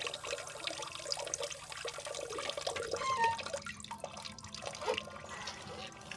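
Water running in a thin stream from a faucet spout into a porcelain urinal bowl, splashing and trickling steadily.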